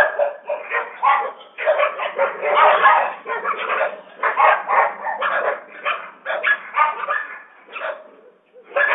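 Several stray dogs barking fast and often overlapping in an almost continuous volley, with a brief lull near the end.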